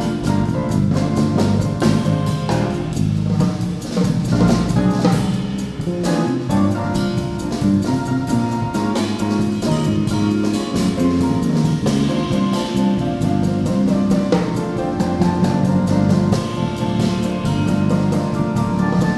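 Live small-group jazz: grand piano, upright bass and a drum kit played with sticks, with the cymbals keeping a steady, busy pulse.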